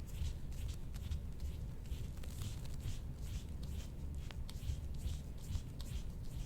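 Soft-tissue work on a patient's back: a quick, irregular run of brushing, rubbing strokes over skin, with a low steady rumble underneath.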